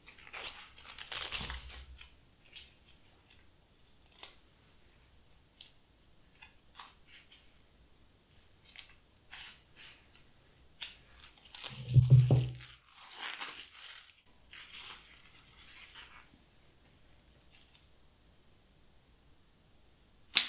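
Gloved hands handling a potted plant's stems and leaves: a string of short rustles, crackles and tearing sounds, with one louder rustle and a low thud about twelve seconds in.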